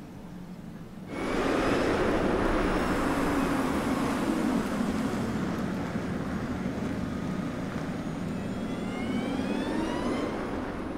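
Audi A6 e-tron concept electric car driving, with tyre and road noise that comes in suddenly about a second in. A whine from the electric drive rises in pitch near the end.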